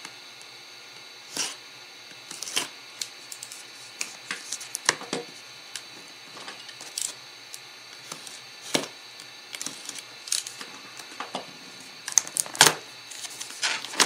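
Irregular light clicks and knocks, one every second or two, of a boxed computer power supply and its packaging being handled and opened, with a louder cluster near the end.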